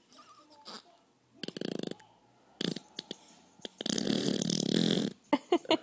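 A person making funny rasping, burp-like noises: a short buzzy one about a second and a half in, a brief one near the middle, then a longer, louder one lasting about a second, followed by a few short quick bursts near the end.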